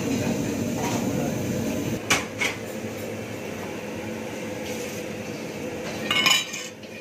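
Dishes and utensils clinking in a commercial kitchen over a steady background hum: two short clinks about two seconds in, then a louder clatter near the end.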